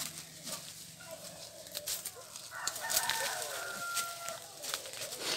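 A rooster crows once, starting about two and a half seconds in and lasting almost two seconds. Dry leaves and twigs crackle underfoot as someone walks through leaf litter.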